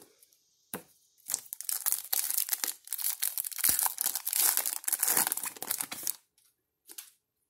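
Foil wrapper of a 2019 Panini Contenders Draft Picks football card pack crinkling and tearing as it is ripped open and the cards are pulled out, a dense crackle starting about a second in and stopping abruptly near the end, with a couple of light clicks around it.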